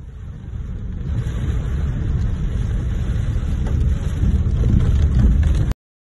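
Low rumble of a car driving on a wet road, heard from inside the cabin and growing louder, then cutting off abruptly near the end.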